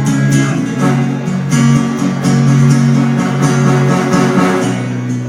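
Live pop song in an instrumental passage between vocal lines, led by strummed acoustic guitar over steady low notes.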